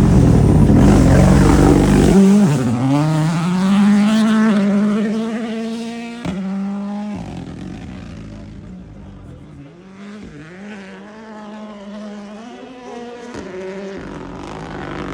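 A rally car's engine at full throttle passes close by, its pitch dropping sharply as it goes past. It then accelerates away through several upshifts, the revs climbing and cutting at each gear change as it fades into the distance. Near the end an engine grows louder again.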